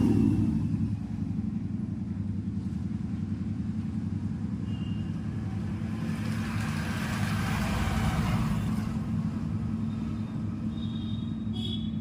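Road traffic going past: a steady low engine hum, with vehicles swelling past at the start and again about six to nine seconds in.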